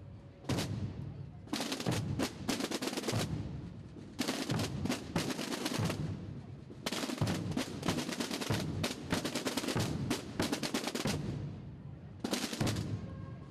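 Massed procession drums: snare drums playing fast rolls in runs of a second or two with short breaks, over deep drum beats.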